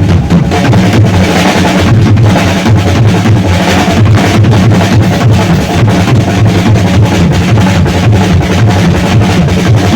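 Live rock drum kit played hard and fast, a dense run of bass drum and snare hits with cymbals.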